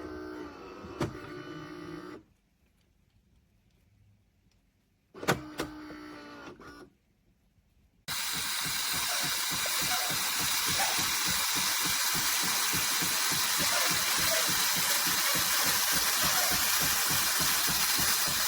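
Philips 3300 espresso machine at work: two short stretches of pump humming with clicks, then about 8 seconds in a loud, steady steam hiss with a bubbly crackle as the LatteGo system froths milk.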